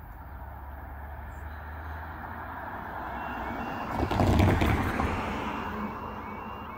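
A car passes close by, growing louder to a peak about four seconds in and then fading. Beneath it, the level crossing's quiet electronic alarm starts up about three seconds in, a repeating two-tone beeping that warns the barriers are about to lower for an approaching train.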